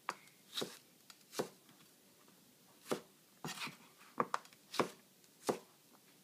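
Chef's knife cutting through peeled Persian cucumber and knocking on a plastic cutting board, in about ten irregular strokes.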